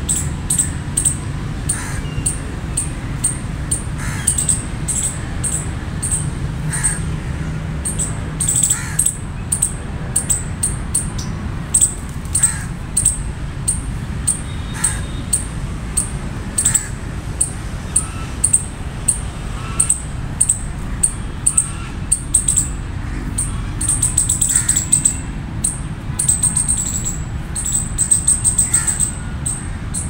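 Palm squirrels chipping: sharp, very high-pitched chirps repeated several times a second, coming thicker towards the end, with fainter lower calls now and then.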